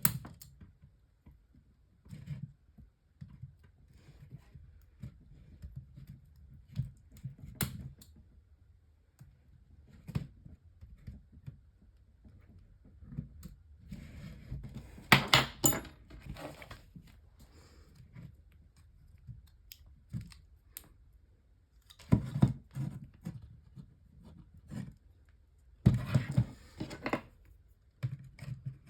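Scattered clicks, clatter and rustling of small plastic and metal parts being handled as a small fan heater is taken apart, with louder bursts of clatter about halfway through and twice near the end.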